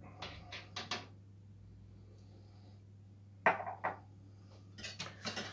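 Kitchen handling noises: a few light clicks and knocks, then a sharper knock about three and a half seconds in and more clattering near the end, over a steady low electrical hum.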